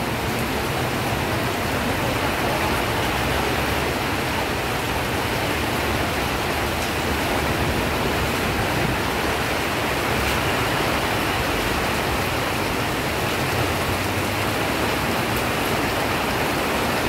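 Heavy rain falling, a dense steady hiss that holds at one level throughout.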